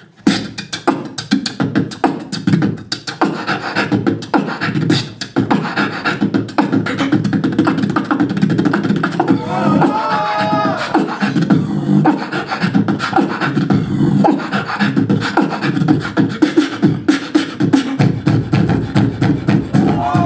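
Beatboxing into a handheld microphone through a PA: a fast, continuous run of kick, snare and click sounds over low bass pulses, with a short pitched, wavering vocal tone about halfway through and again near the end.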